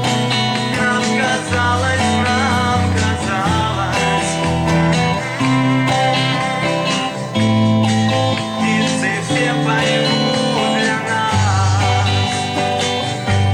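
Music: a song with guitar over a bass line that changes note every second or so, and a wavering, vibrato melody line that sounds like singing.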